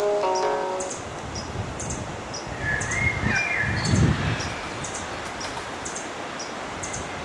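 Birds singing in a forest: short, high chirps repeating about twice a second, with a lower, gliding call a few seconds in, over a steady rushing background.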